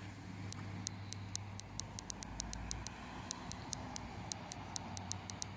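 Small engine of a custom mini sportbike idling quietly with a steady low hum, while light, sharp ticks come irregularly, about four a second.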